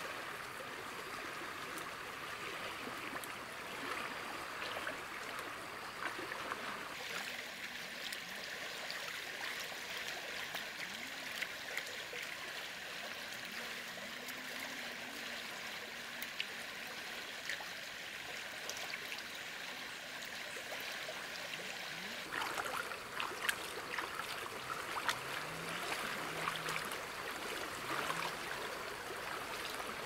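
Shallow river flowing, a steady rush and trickle of water. From about two-thirds of the way through, close splashing and dripping join in as hands work in the water.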